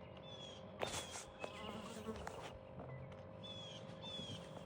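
Faint outdoor lakeside ambience: a steady buzzing hum, with several short, high chirps that slur downward, twice in quick pairs, and a few soft clicks about a second in.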